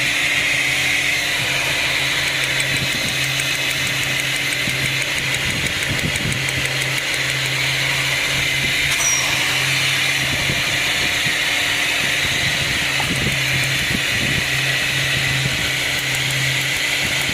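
Ford Falcon BF's six-cylinder engine idling steadily, with a few light knocks from work on the ignition coils. The engine has a misfire that is being traced to a weak ignition coil.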